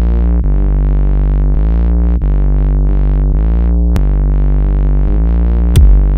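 Electronic synthesizer music: sustained chords that change every second or so, with a sweeping filter, and a drum beat coming in near the end.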